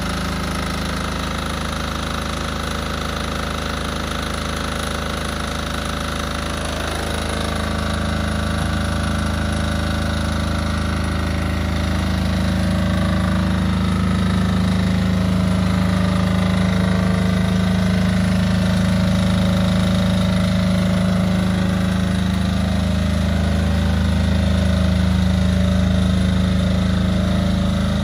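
Diesel generator engine on a hybrid robotic platform running steadily, charging the platform's battery. Its note shifts about seven seconds in and it grows louder over the next few seconds, then holds steady.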